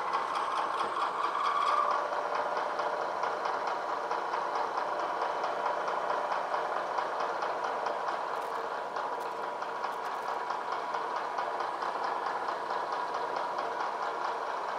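Bridgeport vertical milling machine running steadily, its end mill cutting along the side of a cast 85-3-5 red-brass cradle casting as the table is fed by hand. The cut is leaving a rough finish, which the machinist puts down to a bad end mill.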